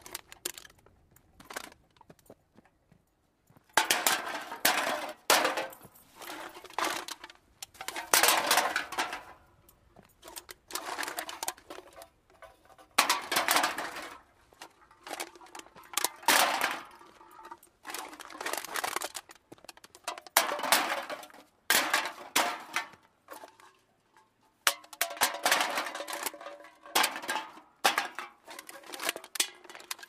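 Cans being dumped into a cart, heard close up: about a dozen bursts of clattering, clinking cans, each lasting a second or two, with short pauses between.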